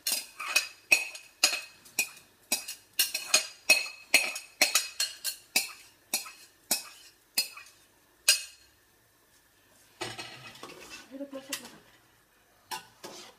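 A metal spoon knocking against a bowl about three times a second as soaked rice is scraped out of it, each knock ringing briefly; the knocks stop after about eight seconds. A spatula then stirs through the rice in the pot, with a couple more knocks near the end.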